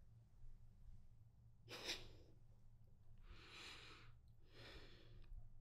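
Near silence over a faint low hum. A short sniff comes about two seconds in, and two soft breaths follow in the second half.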